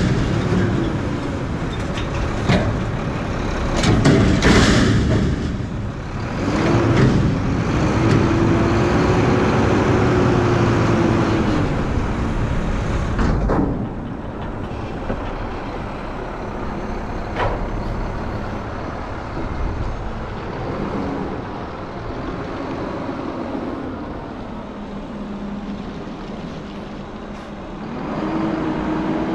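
Front-load garbage truck working a dumpster: the engine revs up and down to drive the hydraulic lift arms, with loud metal bangs in the first few seconds as the container is dumped and a few sharper knocks later as it is set back down. The engine then drops to a lower run and revs again near the end as the truck pulls away.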